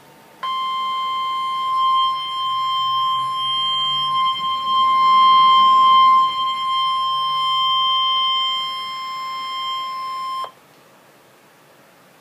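NOAA Weather Radio 1050 Hz warning alarm tone: a single steady, loud tone held for about ten seconds, then cut off abruptly. It signals that a weather warning broadcast follows, here a severe thunderstorm warning.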